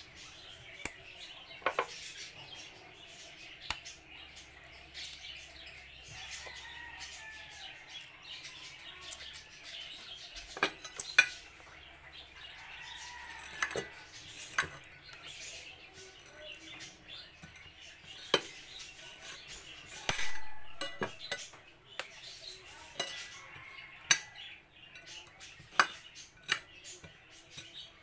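Kitchen utensils clinking and knocking against dishes in irregular sharp taps, with birds chirping faintly in the background.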